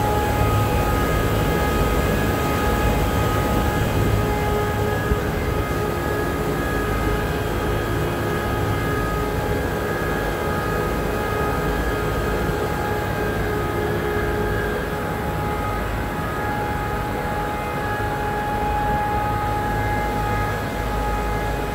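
Air-cooled McQuay chillers running: a steady drone of condenser fans and compressors, with several steady whining tones over a low rumble.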